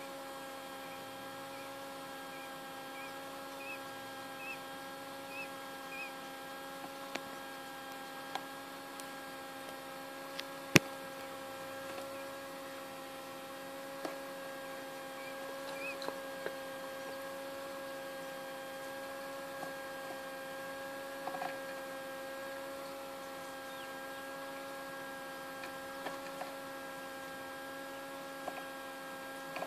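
Small egg incubator's fan motor humming steadily, with a few faint short peeps from quail chicks during the first six seconds and again around fifteen seconds in. Scattered light clicks, and one sharp click about eleven seconds in.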